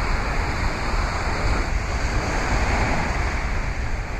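Small waves breaking and washing up a sand beach, with wind buffeting the microphone as a steady low rumble.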